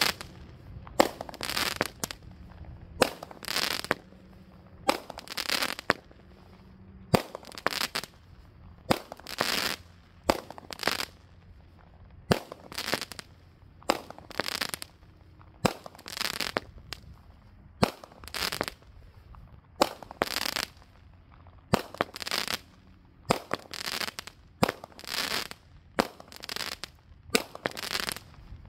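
Brothers Pyrotechnics 'Magnificent Festival' 200 g consumer firework cake firing shot after shot at a steady pace, one every second or two. Each shot is a sharp launch thump followed about half a second later by the burst in the air.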